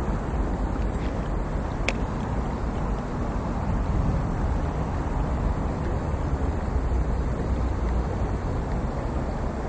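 Steady rushing noise of a fast-flowing stream, heaviest in the low end, with wind on the microphone, and a single sharp click about two seconds in.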